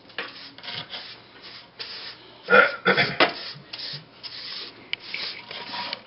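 Irregular rubbing and scraping strokes on the floor surface, with a louder cluster of scrapes about two and a half seconds in.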